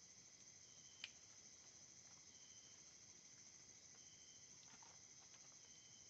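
Faint chorus of night insects: a steady high-pitched trilling, with a shorter high call repeating about every one and a half to two seconds. A few sharp clicks, the clearest about a second in.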